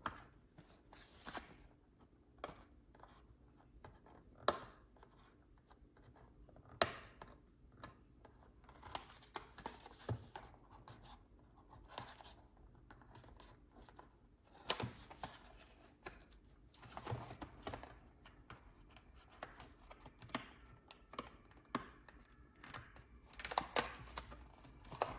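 A small box and its packaging being opened and handled by hand: scattered clicks, scratching and tearing of paper and plastic, with a few louder knocks.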